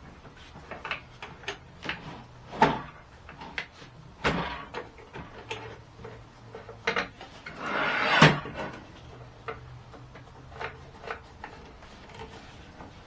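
Clicks, clunks and knocks of a new Vevor 10-inch sliding compound miter saw being handled and adjusted by hand. A longer scraping rush comes about eight seconds in.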